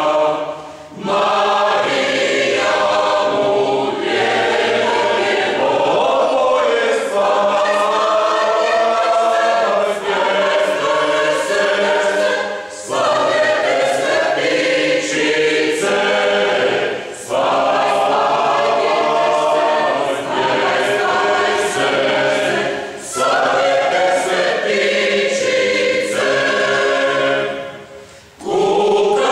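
Mixed choir of men and women singing unaccompanied, sustained chords in several parts. The phrases are broken by a handful of short breath pauses.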